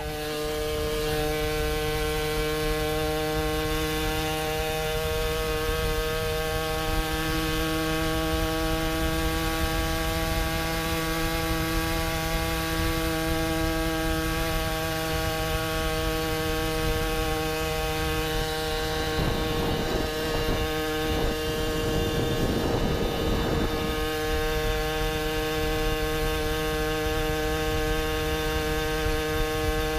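Puch Maxi Luxe moped's single-cylinder two-stroke engine, fitted with a Treats expansion-chamber pipe, running at a steady high pitch while cruising at constant speed. A stretch of rougher noise rides over it about two-thirds of the way through.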